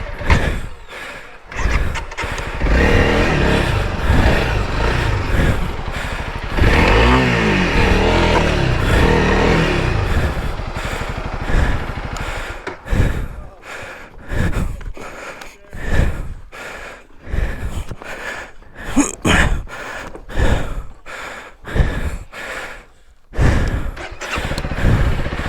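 Honda CRF300L Rally's single-cylinder engine revving while riding off-road, its pitch climbing and falling in the first half, then the throttle opened and shut in many short bursts.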